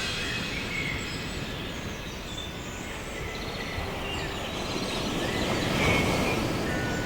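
Outdoor nature ambience: a steady wind-like rumble and hiss with scattered faint bird chirps.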